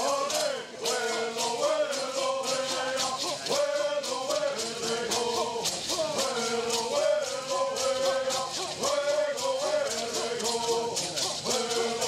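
A group of men singing a Southern California bird song in unison, in repeated phrases, each shaking a hand rattle in a steady beat.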